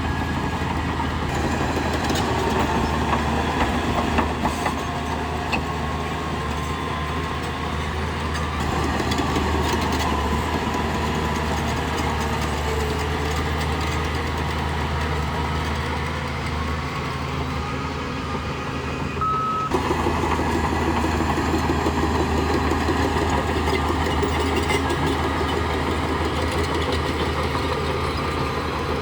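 Diesel engine of a Shantui crawler bulldozer running steadily under work, with mechanical clatter from the machine; the sound dips briefly and changes abruptly about two-thirds of the way through.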